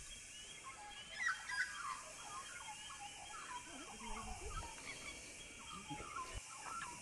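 Birds calling and chattering faintly, many short chirps and warbles scattered throughout.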